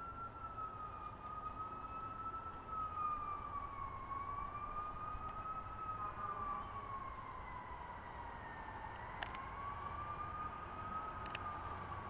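Fire truck siren wailing, its pitch sliding slowly and unevenly up and down, one swing every few seconds.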